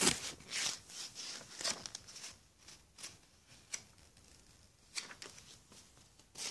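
Handling noise: hands and objects rubbing and scraping against the camera microphone, a series of short, irregular scrapes spaced roughly a second apart.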